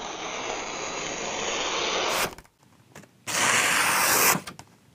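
A freshly sharpened vintage Marples chisel shaving slivers off the edge of a hand-held sheet of paper, a sharpness test. It gives a dry papery hiss lasting about two seconds, then a second, shorter slice about a second later.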